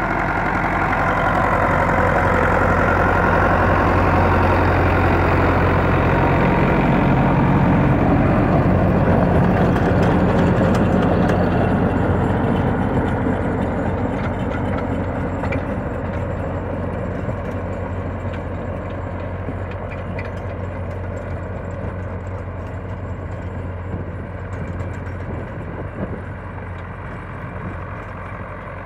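Belarus 510 tractor's four-cylinder diesel engine running steadily under load while driving a rotavator through the soil. It grows gradually fainter over the second half.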